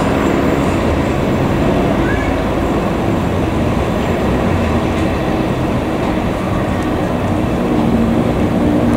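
A passenger train of New Generation stainless-steel coaches rolling past on the track, its wheels making a steady rumble on the rails.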